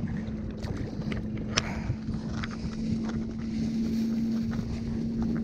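Wind on the microphone and choppy water slapping a kayak, under a steady low hum, with scattered small clicks and crinkles from a plastic bait bag being handled.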